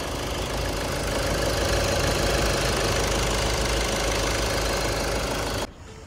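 Ford EcoSport's 1.5-litre TDCi four-cylinder diesel engine idling steadily, running again after the flood-damaged car's electronics were repaired. The sound cuts off suddenly near the end.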